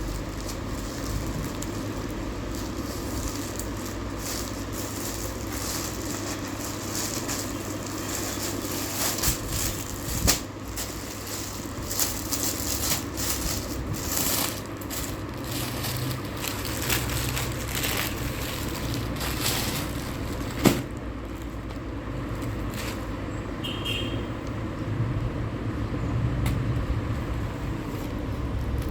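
Packaging being handled and unwrapped, with crinkling, crackling rustles and scattered clicks, one of them sharper about two-thirds of the way in, over a steady low hum.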